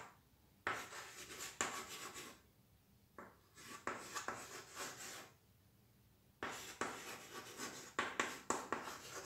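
Chalk scratching on a chalkboard as words are written: three spells of quick strokes with short pauses between them.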